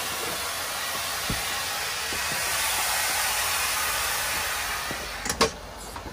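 Compressed air hissing out steadily as the truck's air is let down. The hiss drops off about five seconds in, followed by two sharp knocks.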